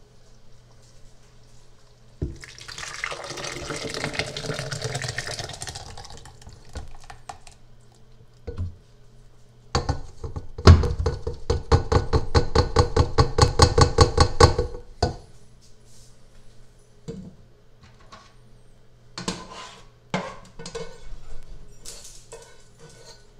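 Thick tomato-based soup poured from a cooking pot into a plastic blender jar. A splashing pour comes first, then a loud run of quick, even glugs, about six a second, for several seconds. A few knocks of pot and utensils on the jar follow.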